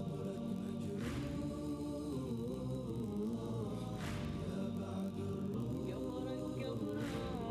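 Background music: an a cappella devotional chant sung by layered voices, with long, wavering held notes.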